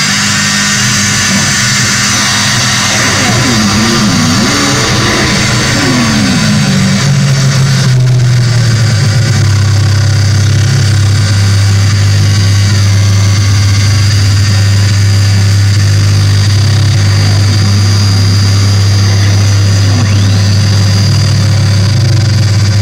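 Loud live electronic drone played on tabletop electronics: a dense wash of steady tones and hiss, with a few swooping pitch glides in the first seconds. About eight seconds in, a heavy low hum settles in and holds.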